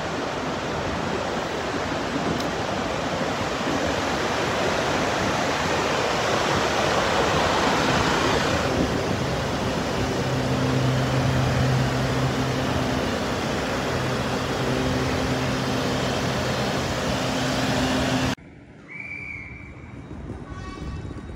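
Trains standing at a station platform: a steady rushing noise of running equipment, with a low steady hum joining about halfway through. Near the end the sound drops abruptly to a much quieter background.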